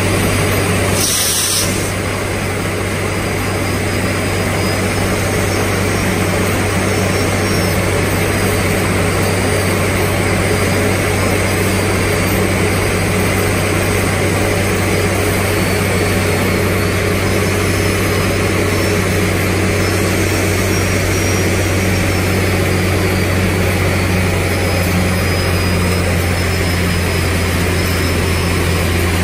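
Handheld electric die grinder running steadily with a grinding point pressed against the tungsten carbide buttons of a borewell button bit, sharpening them: a continuous motor drone and grinding noise, with a faint high whine that wavers in the second half.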